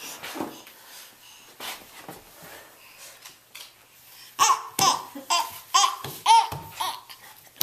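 A baby babbling and laughing: quiet at first, then about halfway through a quick run of short, high-pitched squealing bursts of laughter.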